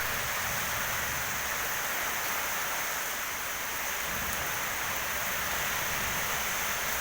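Heavy rain falling steadily as a continuous hiss, with strong wind gusting as an uneven low rumble underneath.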